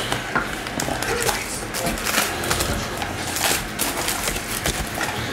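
Cardboard hobby box and foil-wrapped trading card packs being handled, with crinkling and rustling and scattered small clicks.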